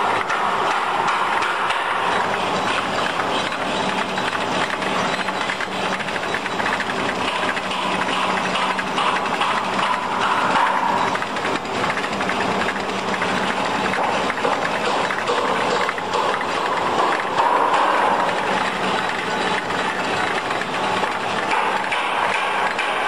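Four-head spiral steel-wire scourer making machine running at speed: a steady, dense mechanical clatter of rapid clicks, with a faint steady low hum under it.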